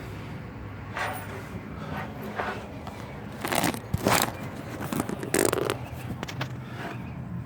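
Pickup truck running with a low steady hum, broken by several short, harsh scraping or grinding noises at irregular intervals. This is the loud noise the truck makes when shifted into reverse, a fault the owner cannot yet explain.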